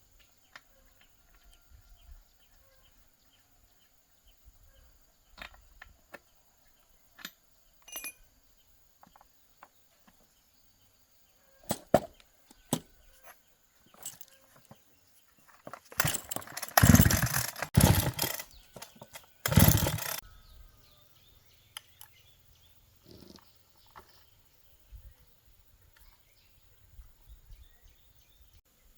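Scattered clicks and knocks of hand tools at work on a chainsaw. About two-thirds of the way through comes a loud rushing noise that lasts about four seconds and then cuts off suddenly. A faint, steady high-pitched whine runs underneath.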